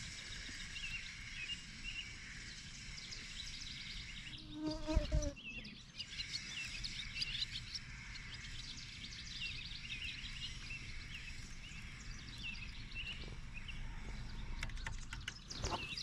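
Birds chirping throughout, over a faint steady insect buzz. A knock with a short low tone comes about five seconds in, and a few faint clicks near the end.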